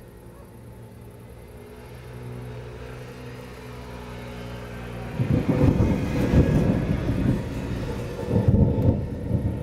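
Thunder rumbling: a loud, uneven low roll that starts about five seconds in and keeps surging. Before it, a low steady hum.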